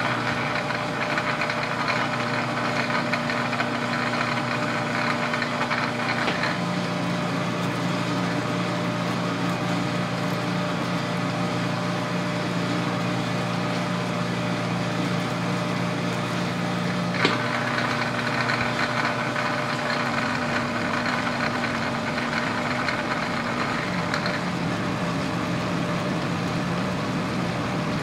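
Metal lathe running under power feed while a single-point tool cuts a square thread in a metal bar: a steady motor and gear drone. About six seconds in the drone drops a little in pitch and a higher rushing layer falls away, and both come back near seventeen seconds.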